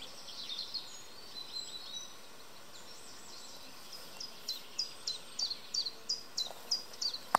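Songbirds singing in spring woodland by a lake, a scatter of high chirps at first, then one bird repeating a short, high downward note about three times a second through the second half.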